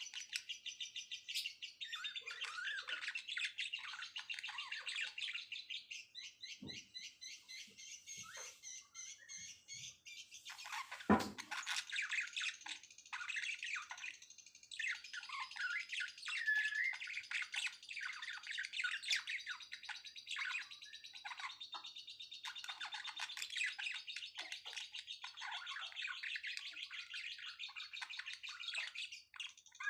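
Several songbirds chirping and trilling at once in a continuous, busy chorus of high, quick notes, with one louder sharp sound about eleven seconds in and a brief lull a few seconds later.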